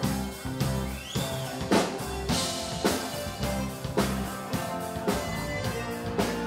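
Live rock band playing an up-tempo song: a drum kit keeps a steady beat of about two hits a second under electric guitars.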